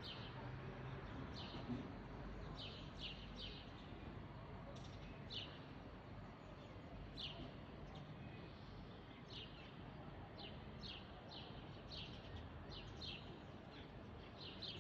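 A small bird chirping: short, high chirps, each falling in pitch, repeated irregularly about once or twice a second. Faint steady low background noise runs underneath.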